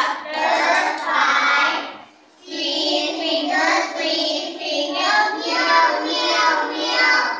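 A group of young children singing together in unison, with a short pause about two seconds in before the singing resumes.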